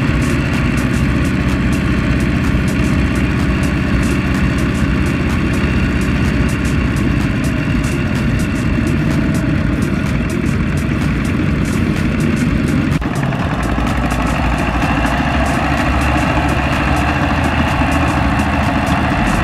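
Single-cylinder diesel engine of a two-wheel walking tractor (power tiller) running steadily as it works a trailer through deep mud, with a fast, even beat. The sound shifts abruptly about two-thirds of the way through.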